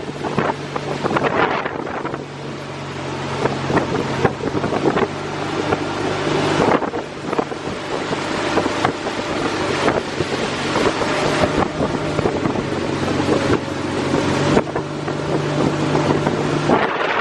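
An engine running with a steady low hum, under heavy wind buffeting the microphone. The sound changes abruptly a few times along the way.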